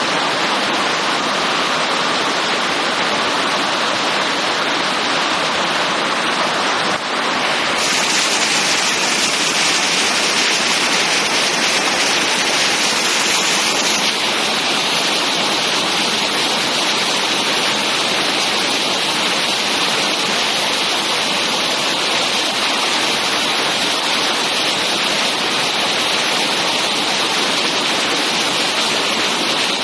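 Heavy rain in a steady, loud downpour, hissing on roofs and leaves. The hiss turns brighter about eight seconds in and settles again about six seconds later.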